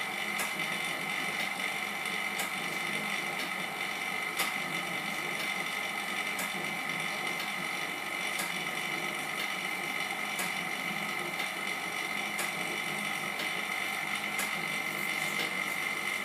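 Semi-automatic LCD separator running, driving its steel cutting wire back and forth through the screen's glue with a steady high whine and a sharp click about every two seconds.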